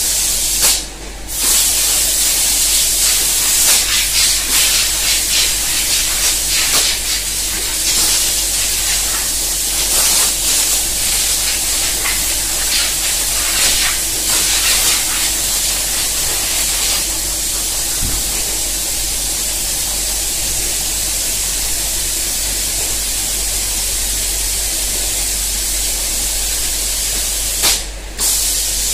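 Spray guns of an automatic painting machine hissing as they atomise paint, over a steady low machine hum. The hiss comes in short spurts through the first half and then runs evenly, dropping out briefly about a second in and again near the end.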